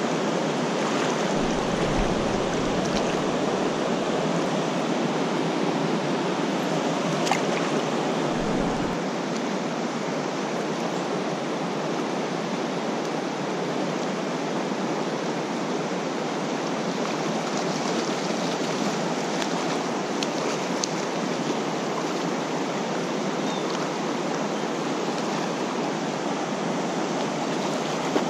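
Steady rush of fast-flowing creek water running through riffles around the wader, with a few faint clicks.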